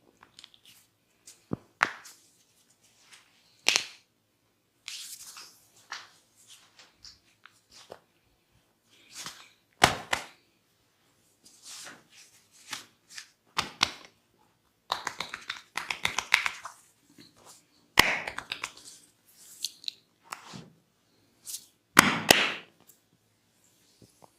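A barber's hands working through a head massage: an irregular series of sharp slaps and cracks, with rubbing and scratching on hair and skin between them.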